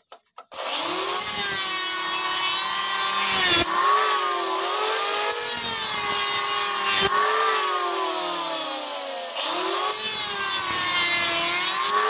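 Electric hand planer starting up about half a second in and cutting along a batch of thin wooden strips. Its motor whine sags and recovers a few times as it is pushed through the wood in passes.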